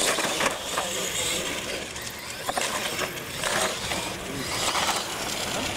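Radio-controlled monster trucks racing down a concrete track, their motors and tyres running steadily.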